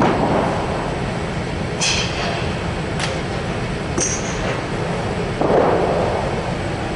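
A golf club clicking against a ball on artificial turf on short chip shots: a few clicks, the sharpest about three seconds in, over a steady background rumble.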